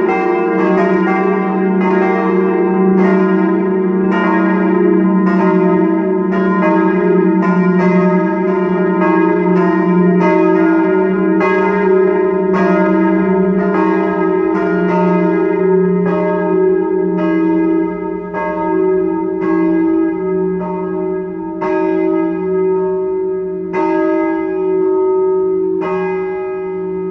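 Full peal of four steel church bells cast by Böhler of Kapfenberg in 1922, tuned E-flat, F, G and B-flat, swinging and striking in overlapping rhythms. About two-thirds of the way in, the strikes come less often and the sound begins to thin out.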